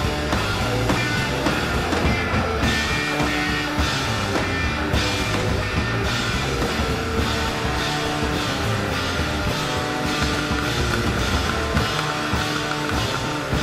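Rock music with electric guitar and drums, a steady beat, with no singing.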